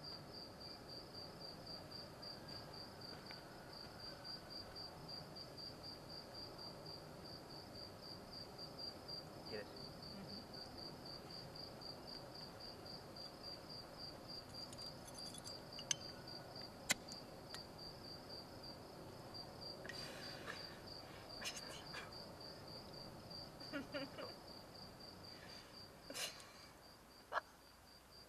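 A cricket chirping steadily at one high pitch, about five chirps a second. A few sharp clicks and faint knocks come in the second half.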